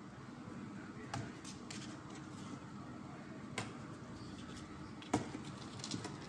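Kittens' paws and claws tapping and scratching on a cardboard box as they play, a few scattered sharp taps with the loudest about five seconds in, over a steady low background noise.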